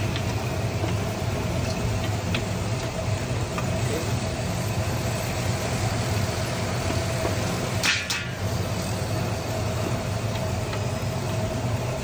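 Steady mechanical hum of a large industrial cooking kettle's motorised stirring arm running, with one short sharp noise about eight seconds in.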